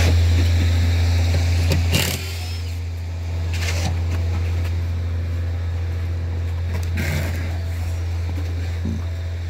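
An engine runs steadily with a low, even hum, and a few brief scraping noises come and go over it.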